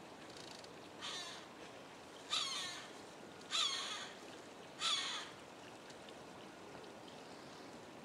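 A crow cawing four times, about a second and a quarter apart; the first caw is fainter than the other three.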